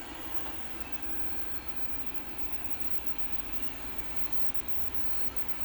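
Everybot 3i robot floor cleaner running in spot-cleaning mode, its motors giving a steady whir with a faint high whine that wavers slightly in pitch.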